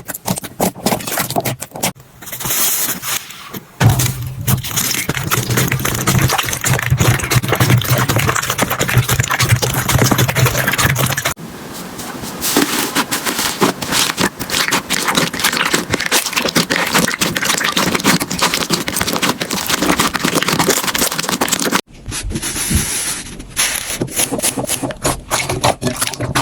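Slime being squeezed and pressed by hand, with dense crackling and popping. The texture changes abruptly three times as one clip gives way to the next.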